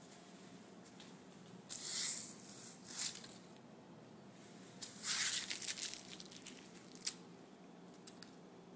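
Two cats play-fighting on a carpeted floor: a few short scratchy bursts of noise, the loudest about two and five seconds in, and a sharp click near seven seconds.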